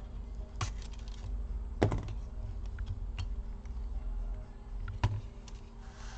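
Sharp plastic and metal clicks and knocks as a laptop's fan-and-heatsink cooler assembly is pried free and lifted out of the chassis. The loudest clicks come about half a second in, just before two seconds and about five seconds in, with lighter ticks between, over a low steady hum.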